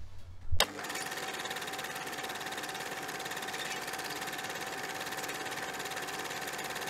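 A low outdoor rumble cuts off about half a second in. It gives way to a steady, very rapid machine-like clatter with a held tone through it, which accompanies the outro logo card.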